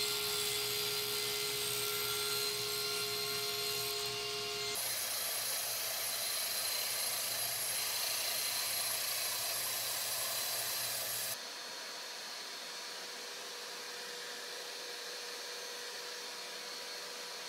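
Steady machine noise, a hiss with a faint hum. It changes abruptly about five seconds in and again past the middle, where it turns quieter.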